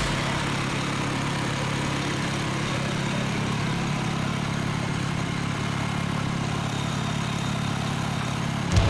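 Portable band sawmill's gas engine running steadily.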